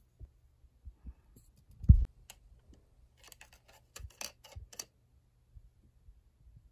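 Handling noises of a small humidifier part: a thump about two seconds in, then a quick run of small metallic clicks as the slotted metal cap is pressed back onto the top of a plastic USB mini humidifier.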